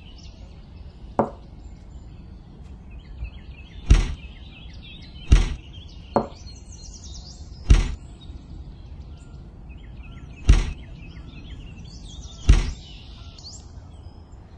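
Cherries dropped by hand into a small stick-built toy wagon, landing as a series of sharp knocks a second or two apart, about six in all, with faint bird chirps behind.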